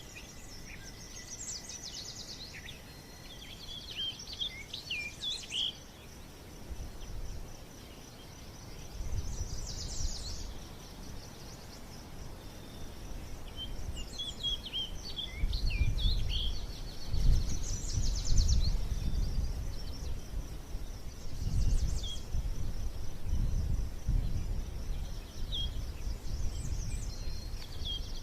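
Birds chirping in short scattered calls over a steady high insect-like buzz, with low rumbling noise coming in from about a third of the way through.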